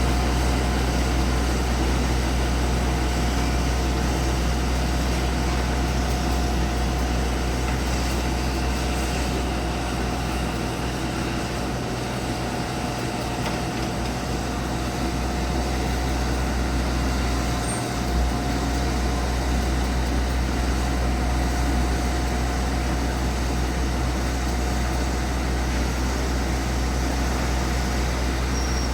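Kobelco 140 hydraulic excavator's diesel engine running steadily: a deep, even rumble with a steady higher whine over it.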